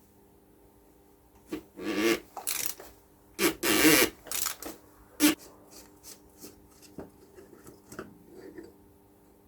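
Scraping and rasping as the oil filter housing cap on a 1.9 TDI engine is worked loose, loudest about four seconds in, followed by a few light clicks and taps.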